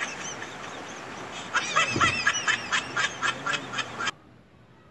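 A bird calling in a quick run of short, chirping notes, several a second, starting about a second and a half in and cutting off suddenly near the end.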